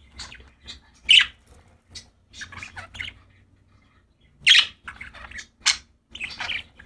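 Pet budgerigars chirping and squawking in short, separate calls, two louder squawks standing out, about a second in and again halfway through.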